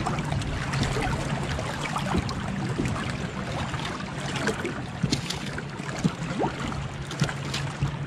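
Steady noise of wind and water around a bass boat drifting on the lake, with a low steady hum underneath and a few light knocks.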